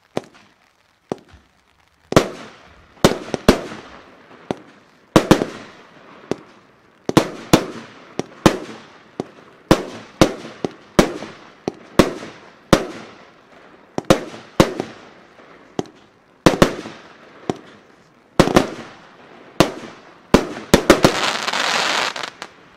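Riakeo & Röder Nishickeria 30 mm consumer firework cake firing. Sharp shots come one after another, about one or two a second, each trailing off in a fading hiss as the burst opens. It ends in a quick run of shots and a dense crackling hiss.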